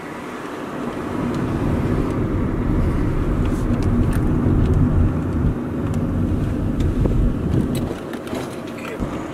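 Volkswagen car driving, heard from inside the cabin: steady engine and road noise that grows louder over the first few seconds and eases off near the end.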